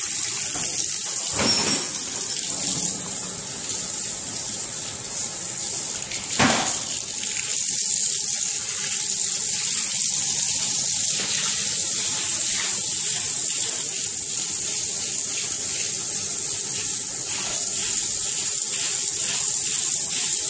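Water-cooled diamond core drill boring a core sample out of a concrete column: a steady, loud wet grinding hiss, with two sharp knocks a few seconds apart near the start.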